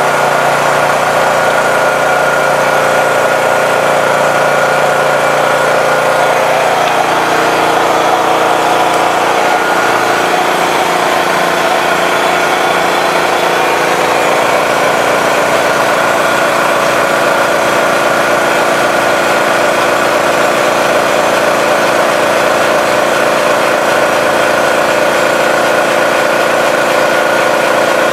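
Makita MAC2400 2.5 hp electric air compressor running and pumping up its tank, with a Honda EU3000iS inverter generator running under that load in eco mode. The steady machine sound shifts in pitch a few seconds in, then holds steady again.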